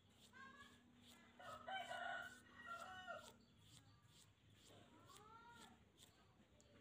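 A rooster crowing faintly in several rising and falling segments about a second and a half in, with a shorter arching call about five seconds in. Light, evenly repeated scraping strokes of a hand nail file run underneath.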